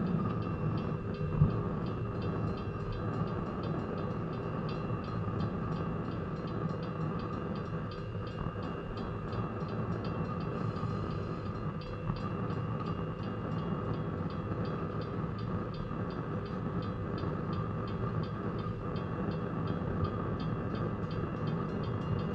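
Railroad crossing bell ringing in a fast, steady repeat over the low rumble of railroad cars rolling across the crossing behind a steam train. One sharp knock comes about a second and a half in.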